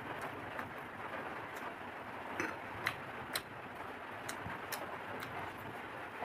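A person eating a meal of fried food such as chips, fried potatoes and fried fish, with several sharp crunches and clicks of chewing and handling food over a steady background hiss.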